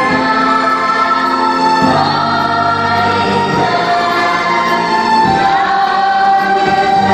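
Slow choral music: a choir singing held chords that change about every two seconds over a low sustained accompaniment.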